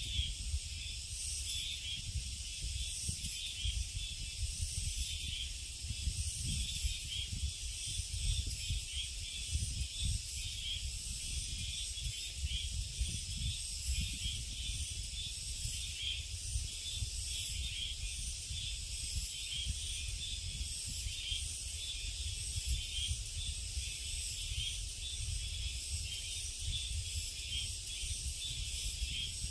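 A dense, steady chorus of summer insects, a high shimmering drone. Underneath it runs a low, uneven rumble.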